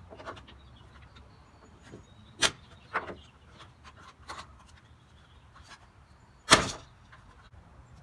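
Scattered clicks and knocks of a plastic smoke detector and tools being handled on a wooden table; the loudest is a sharp knock about six and a half seconds in.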